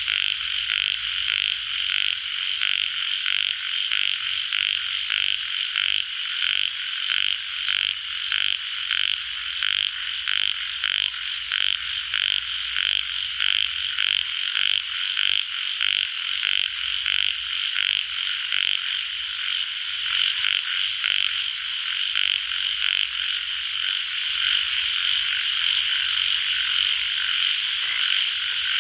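A chorus of tiger frogs croaking, many calls overlapping in a continuous, evenly repeating stream at about two pulses a second.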